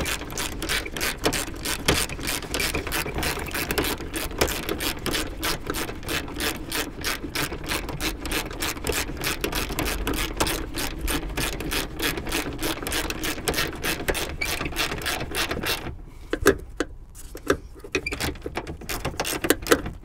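Ratchet wrench with a 14 mm socket clicking rapidly and evenly as it tightens a seat belt anchor bolt. The clicking stops about sixteen seconds in, leaving a few scattered clicks and knocks.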